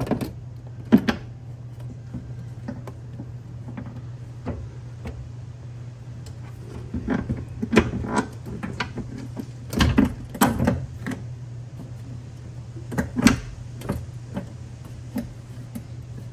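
Scattered knocks, clunks and clicks of an ARB twin air compressor being handled and worked onto its metal mounting bracket, the loudest few coming in the middle and one sharp knock later on. A steady low hum runs underneath.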